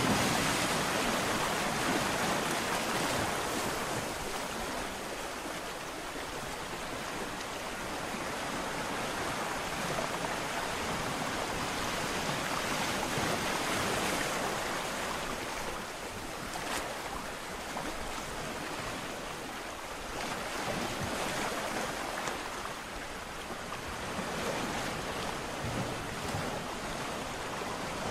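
Sea surf breaking on a shore: a continuous rushing wash of water that swells and eases every few seconds as waves come in and draw back.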